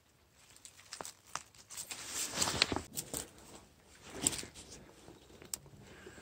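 Dry leaf litter, pine needles and twigs rustling and crackling as someone moves through forest undergrowth, with irregular sharp snaps. It is loudest a couple of seconds in and again a little past four seconds.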